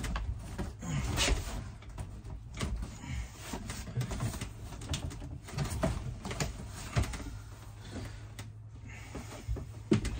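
Thin wall panel being pushed and shifted into place against a wall: scattered light knocks, taps and scraping as the board bumps and rubs on the wall and frame.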